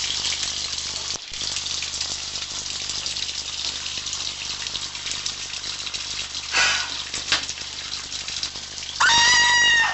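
Bathtub tap running, water gushing steadily into the tub. In the last second a woman screams, loud and sustained.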